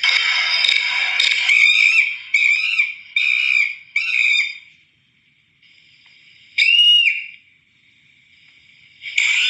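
A string of cartoon scream sound effects: a loud shrill scream, then four short high yelps in quick succession, then after a pause a single short whistle-like cry that rises and falls. Another loud scream starts near the end.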